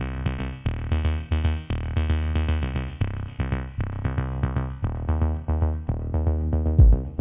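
Electronic background music: a drum-machine beat with synthesizer notes over a heavy bass line, keeping a quick, steady rhythm, with a deep bass hit near the end.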